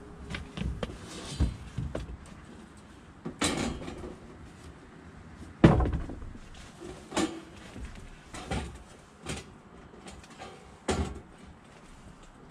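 A series of irregular knocks and clattering thumps, as of hard objects being handled and set down, the loudest about six seconds in.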